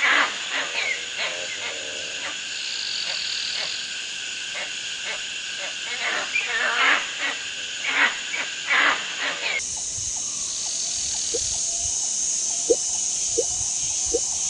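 Tropical forest ambience: a steady high insect drone with repeated short animal calls. About ten seconds in it switches to a bubbling mud pool, a hiss with a few low plops as mud bubbles burst.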